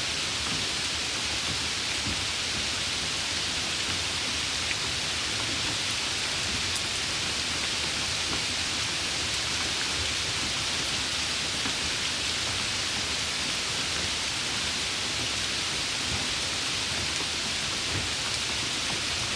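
Steady summer rain falling, an even, unbroken hiss.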